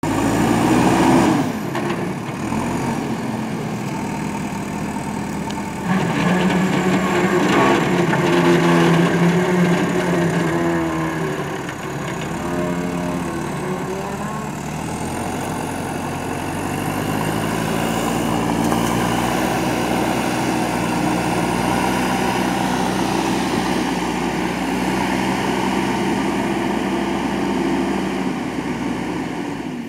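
Diesel engine of a JCB backhoe loader running under load, its note rising and falling as the throttle changes, with sudden changes in level about one and a half and six seconds in.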